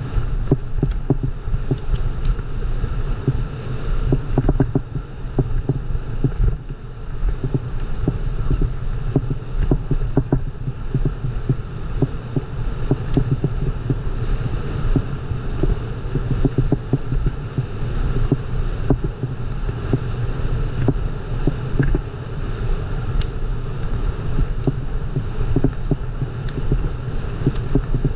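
Bicycle rolling fast over a rough trail: a steady low rumble from the tyres and wind on the microphone, with frequent small rattles and knocks from the bike.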